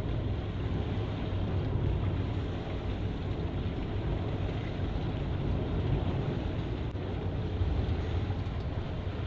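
A boat's engine running steadily, a low drone under a rushing noise of wind on the microphone.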